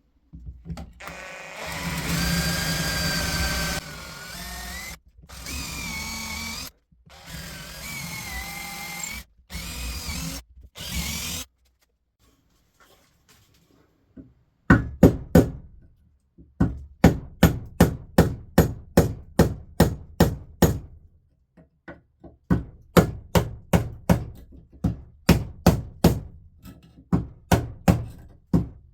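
Power grinder running on the rusty broad axe head in several short bursts, its motor whine shifting in pitch as it bites. After a short pause comes a long run of sharp rhythmic knocks, about four a second.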